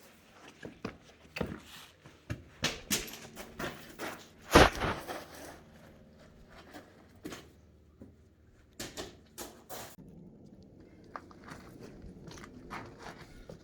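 Footsteps scuffing and crunching over rock and gravel, an irregular run of knocks with one loud thump about four and a half seconds in, then sparser, fainter steps.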